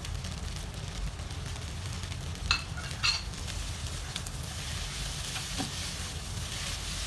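Pineapple fried rice sizzling in a nonstick wok as a spatula stirs and tosses it. The spatula clinks sharply against the pan twice, about two and a half and three seconds in.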